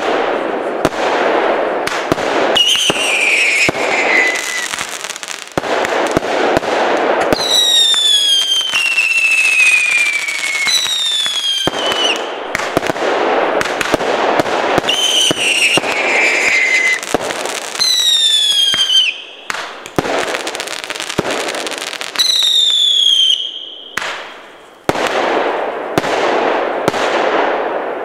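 Svea Fireworks 'Wild Cats' firework battery firing shot after shot, with sharp launch pops and dense crackling from the bursting stars. About six whistles fall in pitch over a second or two each, and the crackle fades out near the end as the last shots burn out.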